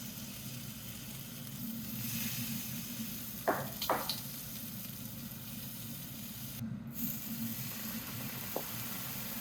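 Food sizzling as it fries in a hot pan, a steady hiss, with two quick clinks about three and a half seconds in.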